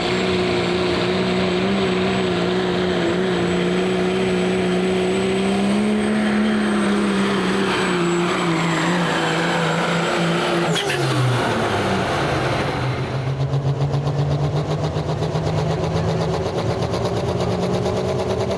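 Diesel pickup pulling a sled at full throttle, the engine holding a steady note under a high turbocharger whistle. About eleven seconds in the engine pitch drops sharply and the whistle cuts out as the pull ends, leaving the engine running lower with an even, pulsing note.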